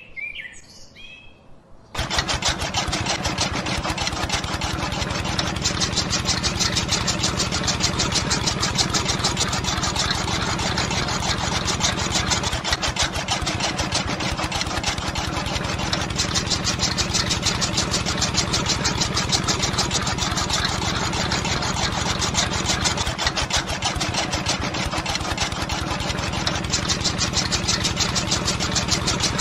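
A machine's engine or motor starts abruptly about two seconds in and then runs steadily with a fast, even chatter. Faint bird chirps come before it.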